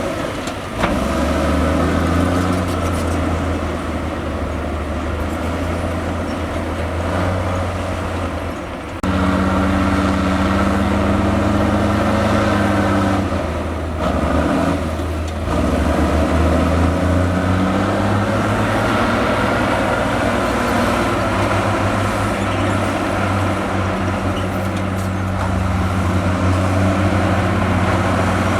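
Heavy diesel earthmoving machinery (bulldozers and dump trucks) running under load, a steady engine drone whose pitch drops and rises again around the middle. The sound changes abruptly about nine seconds in.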